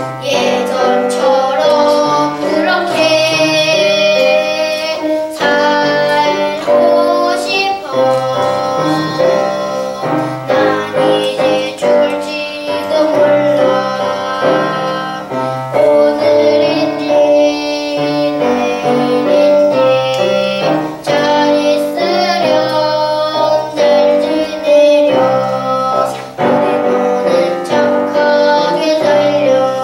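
Children's voices singing a song from a school musical play, with piano accompaniment.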